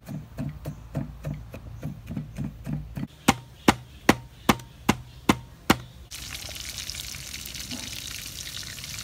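A cleaver chopping on a wooden board, about three quick chops a second. Then seven louder, sharper knocks, about two and a half a second, as a glass bottle pounds snake on the wooden block. Then food sizzling steadily in hot oil in a wok.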